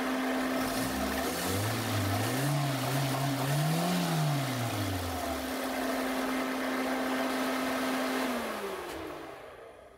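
Toyota 1SZ-FE 1.0-litre four-cylinder engine running without misfiring on its freshly cleaned throttle body. Its revs are raised and let fall several times by hand at the throttle, and near the end it is switched off and winds down.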